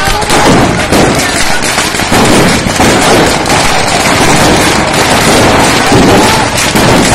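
Masses of firecrackers going off together in a loud, unbroken rattle of bangs and crackles, as a fire sets off a whole stock of them at once. People shout over it now and then.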